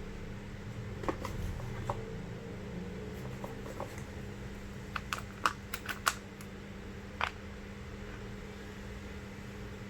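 Light clicks and taps of small tools and parts being handled: a few near the start, a quick cluster in the middle and one more a little later, over a steady low hum.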